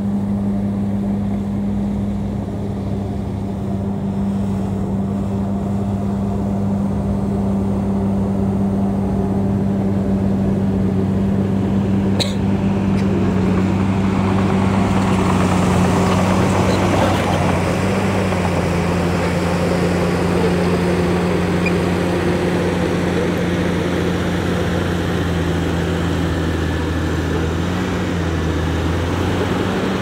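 Diesel engine of heavy earthmoving equipment running steadily under work. A sharp click comes about twelve seconds in, and a rougher clattering noise joins from about halfway. The engine speed dips slightly a couple of times.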